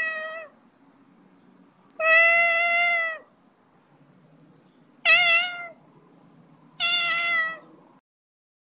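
Siamese cat meowing four times, a second or two apart. The first meow is already under way at the start, and the second is the longest.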